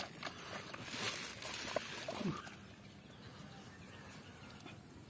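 A plastic basket trap holding live fish being lowered and handled, with rustling and a few sharp clicks for about a second and a half. A short falling cry comes about two seconds in. After that it goes quieter.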